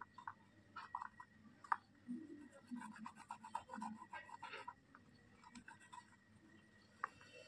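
Small toy knife slicing through a roll of damp slate-pencil powder paste on a plastic chopping board: faint gritty crunches and scrapes with light clicks as the blade meets the board, coming thickest in the middle and thinning out afterwards.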